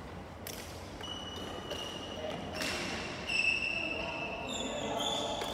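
Badminton play in an echoing sports hall: a few sharp racket-on-shuttlecock smacks, then high squeaks of court shoes on the floor that grow louder toward the end.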